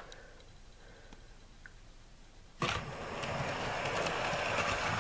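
Hornby OO gauge K1 model locomotive pulling away with its coaches: after a quiet start, its electric motor and wheels cut in suddenly about two and a half seconds in and run on steadily, whirring along the rails. The jump from standstill to running is abrupt, as this locomotive is said to behave, going from zero to full go with barely any power.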